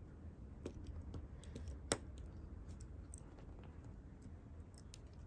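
Faint scattered light clicks and taps, with one sharper click about two seconds in, over a low steady hum.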